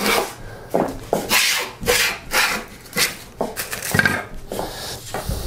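Hand plane shaving a thin wooden strip in a run of quick, repeated strokes, about two a second, each a short rasping swish of the blade cutting a shaving. The strip is being thinned down to make it flexible.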